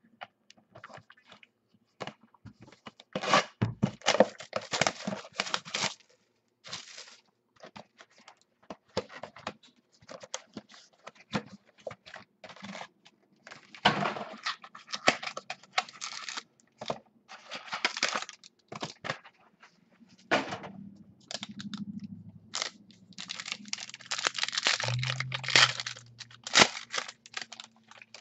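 Trading cards and their boxes and wrappers handled at close range: irregular rustling, scraping and tearing broken by sharp clicks.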